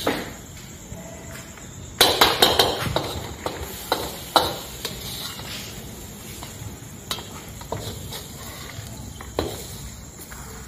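Spatula scraping and knocking against a wok as cooked food is scooped out onto a plate: a quick run of knocks about two seconds in, then scattered taps.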